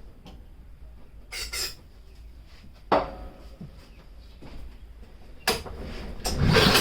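Clicks and knocks of handling the push mower, with one sharp knock about halfway. Near the end the Yard Machines mower's Powermore 140cc engine is pull-started and fires, running loudly with a low rhythmic pulse.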